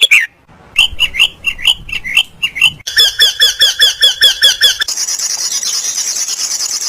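Different birds calling in turn, joined from separate recordings. First a run of sharp calls, about four a second. Then a fast, even series of ringing notes, about six a second, and from about five seconds in a high, steady chattering trill.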